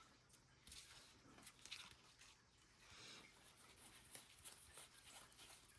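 Faint papery rustling and small clicks of trading cards being handled and slid past one another.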